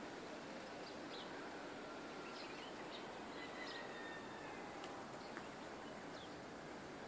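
Small birds chirping, with scattered short chirps and a few brief whistled notes, faint over a steady background hiss of open farmland.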